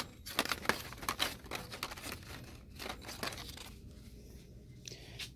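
Plastic packaging of disposable razor packs crinkling and crackling as the packs are handled on the hooks. The crackles are busiest in the first three seconds or so, then thin out and go quieter.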